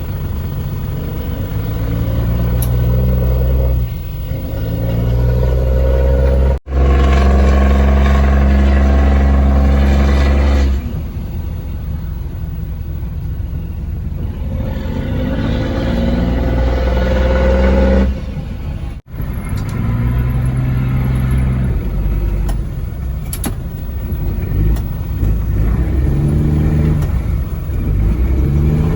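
A large engine running loudly, its speed shifting up and down several times, with a few gliding changes in pitch as it is revved. Three abrupt cuts break the sound.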